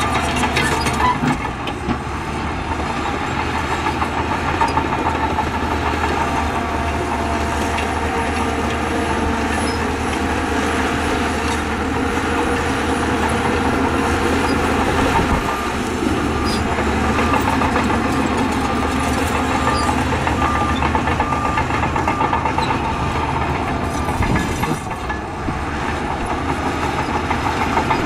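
Heavy diesel earthmoving machinery running steadily, with a few knocks.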